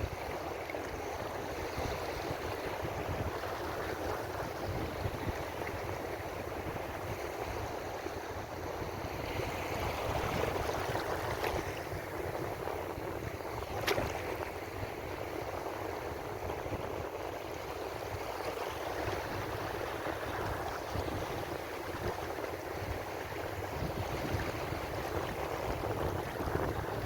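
Ocean waves washing onto a shore: steady surf that swells and eases slowly. One sharp click comes about halfway through.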